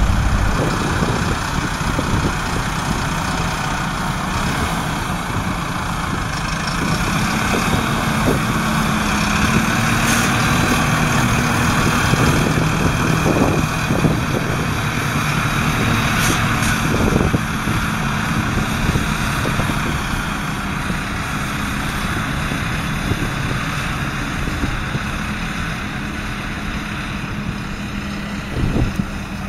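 Valtra N174 tractor's 4.9-litre four-cylinder diesel engine running steadily, with a few short knocks from the machinery.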